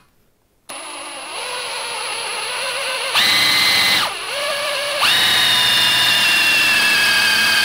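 Drill running a titanium-coated twist bit through oiled steel plate: the drill starts about a second in, and as the bit cuts it gives a steady high whine, with a brief dip in the middle. The bit is cutting cleanly through the metal.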